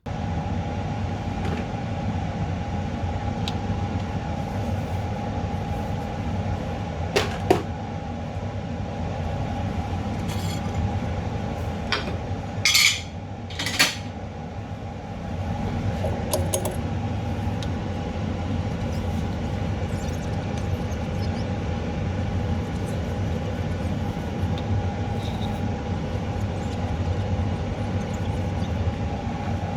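A machine running steadily with a continuous hum over a low rumble, switching on abruptly. A few sharp clicks and knocks sound over it about a quarter of the way in and again just before the middle.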